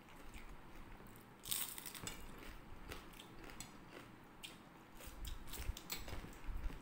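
Close chewing and crunching of crispy Bengali vegetable fritters (bora): a series of short crisp crunches, the loudest about one and a half seconds in.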